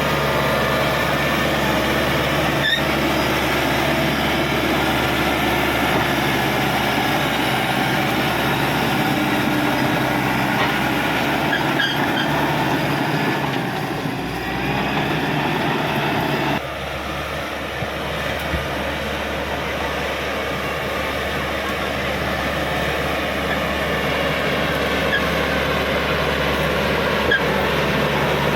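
Cat D5K XL crawler bulldozer's diesel engine running steadily under work, with the rattle of machinery. About 17 seconds in the sound drops abruptly to a slightly quieter, thinner running note.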